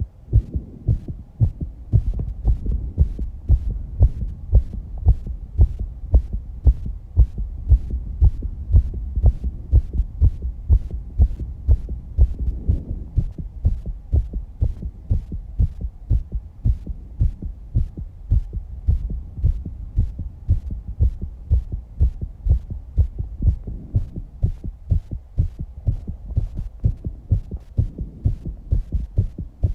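A young woman's heart beating fast after exercise, a steady run of low, dull thumps about two a second.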